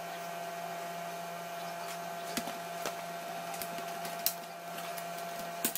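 Steady machine whir with a constant high whine, broken by a few light clicks and taps of handling.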